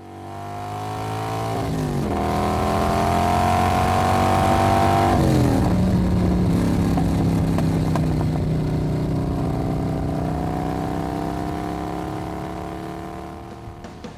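Motor vehicle engine accelerating through the gears: its pitch climbs, drops at a gear change about two seconds in and again about five seconds in, then climbs slowly as the sound fades toward the end.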